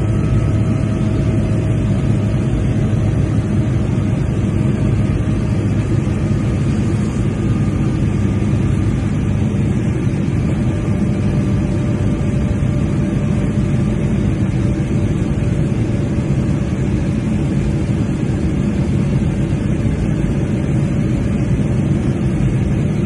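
Steady roar of a Boeing 787's engines and airflow, heard inside the cabin at a window seat beside the engine as it climbs after takeoff. Faint engine whine tones sit over it and drift slowly lower in pitch.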